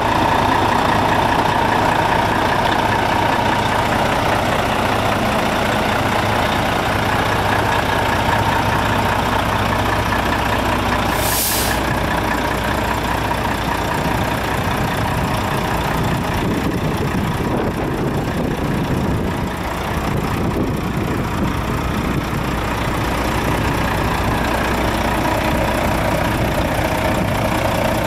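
Volvo FH12 480 tractor unit's 12-litre straight-six diesel idling steadily, with one short hiss of air from the truck's air system about eleven seconds in.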